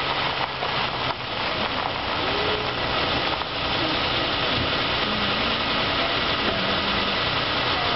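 Vehicle engines idling over a steady rushing noise, without a break or change.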